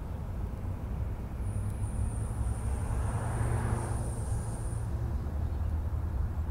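Outdoor background with a steady low rumble and a vehicle passing, swelling and fading around the middle, with a thin high-pitched whine lasting about three seconds.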